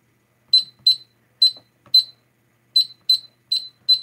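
XFP fire alarm control panel keypad beeping at each button press as its menus are navigated: about eight short, high single-tone beeps at an uneven pace.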